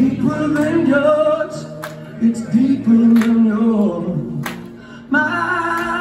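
Live solo rock performance: a man singing with a strummed guitar, the voice holding long notes. The music drops back briefly about four seconds in, then comes in louder.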